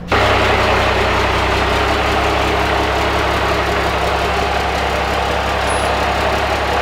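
Cummins turbo-diesel engine in a Dodge Ramcharger idling steadily.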